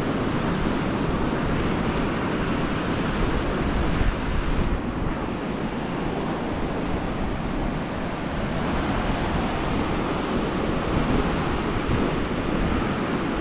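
Indian Ocean surf breaking and washing up a sandy beach, a steady rush of water, with wind rumbling on the microphone.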